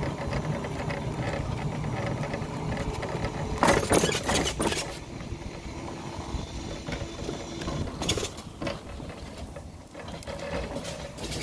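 Boom BD578Z electric motorbike riding slowly, its rear hub motor whining under a rattly, mechanical noise. The whine fades as the bike slows, with two louder noisy bursts about four and eight seconds in.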